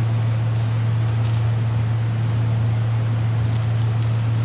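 A steady low hum runs throughout, with faint crinkling of plastic masking sheeting and masking tape being pressed down by hand.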